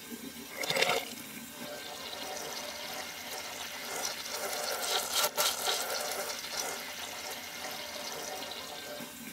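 Toilet flushing, water rushing and swirling down the bowl with a load of cheese popcorn. Louder surges come about a second in and again around four to five seconds in.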